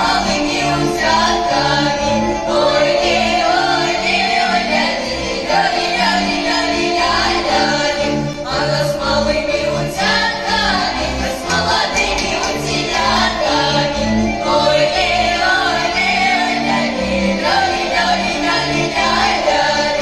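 Girls' folk choir singing a lively Russian folk song together, accompanied by a Russian folk-instrument orchestra with a steady bass beat.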